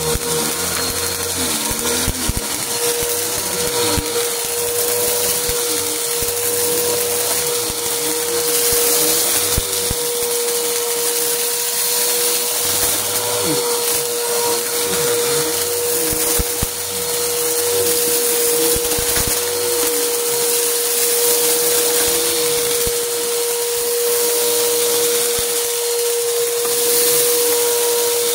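Upright bagless vacuum cleaner running with a steady motor whine, sucking up small hard flakes off a plastic floor mat. The pieces crackle and click as they are drawn in.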